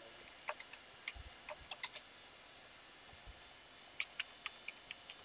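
Faint computer keyboard typing: scattered key clicks in two short runs, one about half a second in and another near the end, with a pause between.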